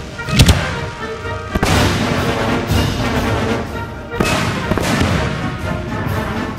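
Fireworks bursting over a music track: one very loud sharp bang about half a second in, then smaller bangs around one and a half and four seconds in.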